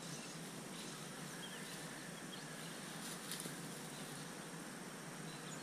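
Quiet outdoor ambience: a steady soft hiss with a few faint, short bird chirps scattered through it.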